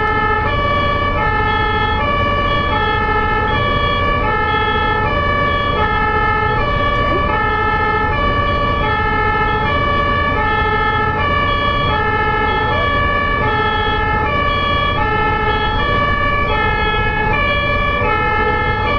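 German two-tone ambulance siren (Martinshorn) sounding continuously, switching back and forth between a high and a low note about every two-thirds of a second. A low traffic rumble runs underneath.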